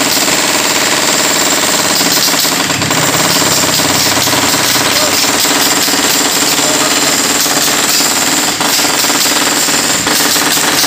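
Jackhammer hammering rapidly and without pause, breaking up the building's concrete.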